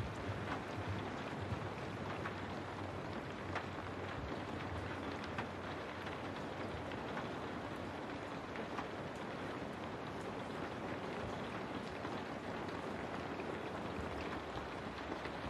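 Steady rain falling, with scattered sharper taps of single drops.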